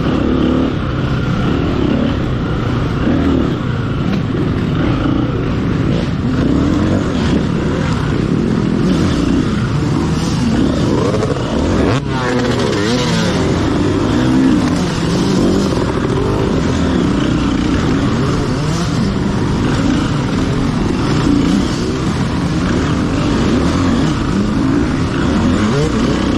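Off-road motorcycle engine under race riding, revving up and down without a break as the throttle is worked, with quick rises and falls in pitch near the middle.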